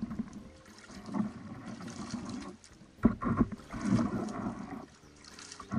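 Canoe paddle strokes splashing in the water, with a few sharp knocks about halfway through.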